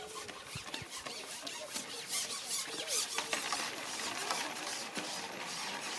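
Long fishing pole being handled and slid back across its rests, giving a string of squeaks, rattles and scrapes, busiest about two to three seconds in.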